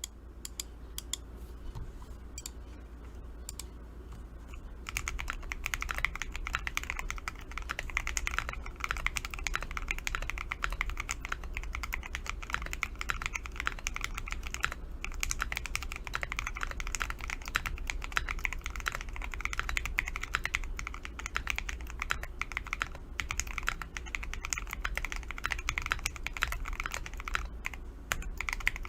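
Keyboard fitted with Oshid Amber keycaps being typed on. A few scattered keystrokes at first, then fast, continuous typing from about five seconds in.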